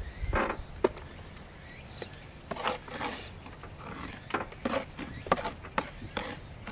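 Steel plastering trowel working mortar onto metal lath on a wall: a string of irregular scrapes and sharp clicks, more frequent in the second half.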